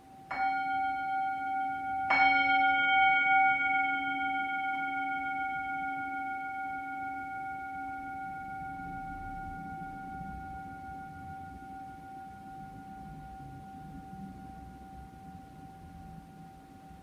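Handheld singing bowl struck twice with a mallet, the second strike about two seconds after the first and louder. It rings with several clear overtones that fade slowly over the following seconds.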